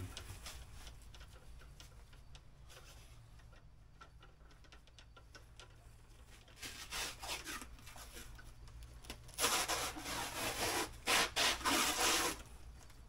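Plastic stretch wrap being pulled off a hand roll and wound around a bundle of golf clubs. Faint rustling at first, a short noisy pull about seven seconds in, then several loud rasping pulls of film in the last few seconds.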